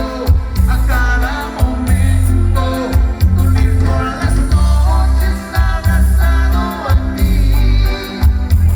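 Music: a song with a sung vocal over a heavy, sustained bass line.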